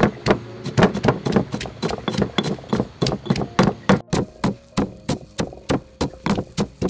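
Two pestles pounding in heavy stone mortars, crushing black peppercorns: rapid dull knocks at about four strikes a second, with a momentary break about four seconds in.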